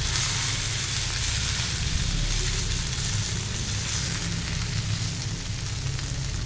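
Masoor dal badis (steamed lentil dumplings) sizzling steadily as they shallow-fry in hot mustard oil in a pan.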